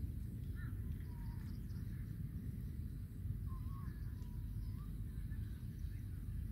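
Field ambience: a steady low rumble with faint bird calls, a few short wavering chirps early on and a longer warbling run near the middle.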